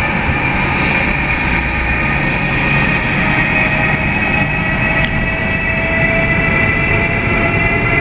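Siemens EU44 'Husarz' (ES64U4 Taurus) electric locomotive pulling away from the station and passing close by, its traction equipment giving a steady whine over the low rumble of the train.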